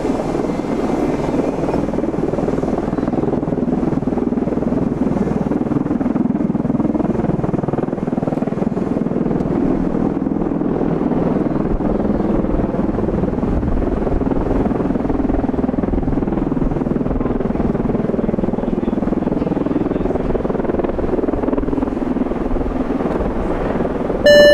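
Bell Boeing MV-22B Osprey tiltrotors in helicopter mode hovering and setting down, their turboshaft-driven proprotors making a steady, heavy rotor noise. A brief electronic tone cuts in at the very end.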